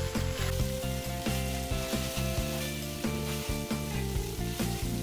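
Hakka egg noodles and shredded cabbage sizzling in a hot frying pan while being tossed with metal tongs, with soft clicks and scrapes of the tongs throughout.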